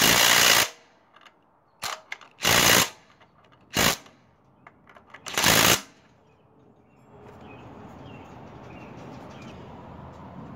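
Cordless impact driver hammering in four bursts, the first about a second long and the rest shorter, tightening the bolt that holds a go-kart torque converter's driven pulley on the engine shaft.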